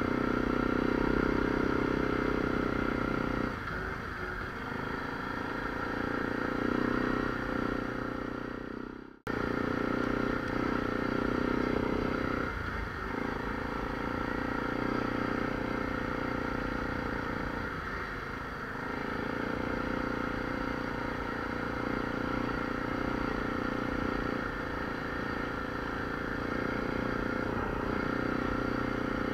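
ATV engine running steadily under way on a dirt trail, the engine note easing off briefly a few times. The sound cuts out abruptly for an instant about nine seconds in.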